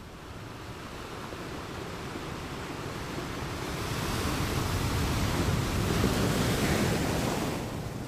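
Wind gusting, a rushing noise with a low rumble of wind on the microphone. It swells over several seconds and eases off near the end.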